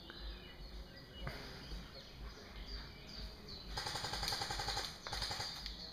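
Airsoft gun firing on full auto: a rapid, even rattle that starts about two-thirds of the way in, stops briefly and resumes near the end. Before it there is only quiet woodland background.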